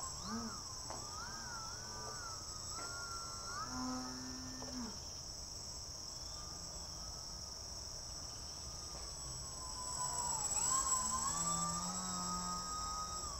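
Steady, high-pitched chorus of insects such as crickets, with a fainter whine that wavers up and down in pitch and grows louder near the end.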